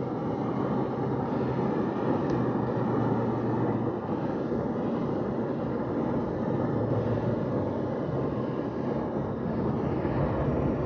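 Steady engine and road noise of a car driving along, heard from inside the cabin, with a constant low hum.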